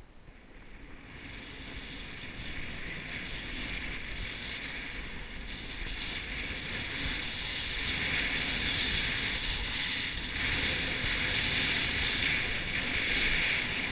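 Snowboard sliding and carving over groomed, packed snow, a steady scraping hiss mixed with wind on the microphone, building gradually as speed picks up.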